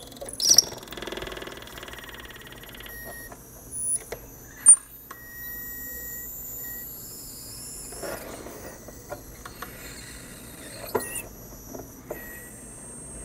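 Small pen-style rotary tool running at high speed with a thin whine, cutting along the seam of a plastic tail light to separate the lens from the housing. A few sharp clicks come through, the loudest a few seconds in.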